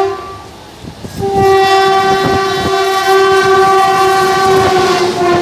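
Electric locomotive's horn on a passing express train: one blast ends, then after a pause of about a second a long steady blast sounds for over four seconds, dropping slightly in pitch near the end as the locomotive passes. Under it the rumble and wheel clatter of the train grow as it comes through.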